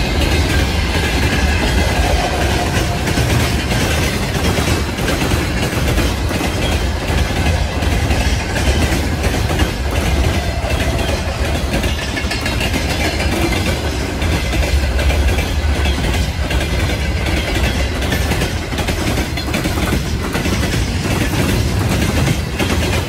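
Freight wagons rolling past close by at speed: a steady heavy rumble with the clickety-clack of wheels over the rail joints.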